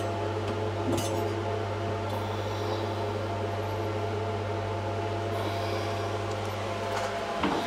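Steady electrical hum of a running powder-coating oven, with a sharp metal clink about a second in and another near the end as a brake caliper is handled inside it.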